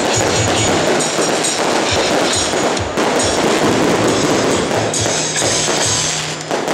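Loud, dense festive percussion: low drum-like beats under constant clashing and crackling.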